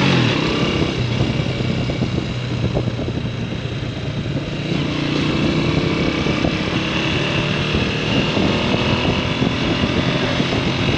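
Motorcycle engine running steadily under way, its pitch dropping briefly at the start, over a steady rushing noise.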